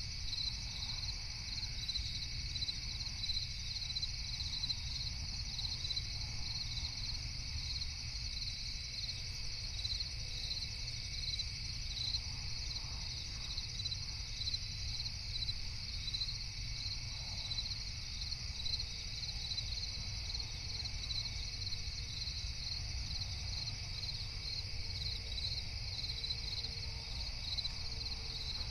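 Crickets chirping at night: a steady, high, rhythmic trill of evenly repeating chirps, over a steady low rumble.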